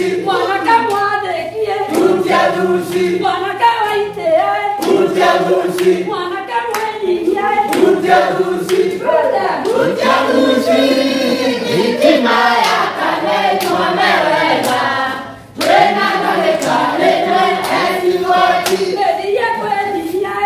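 A group of people singing together with steady rhythmic hand clapping. The singing breaks off for a moment about fifteen seconds in, then picks up again.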